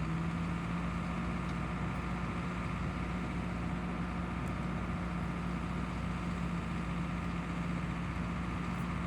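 JCB 220X LC crawler excavator's diesel engine running steadily at a constant speed, with an even hum.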